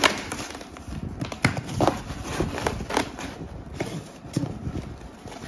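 Corrugated cardboard being handled inside a shipping box: a flat cardboard sheet and the box flaps knocking and scraping against each other in irregular taps, the sharpest right at the start.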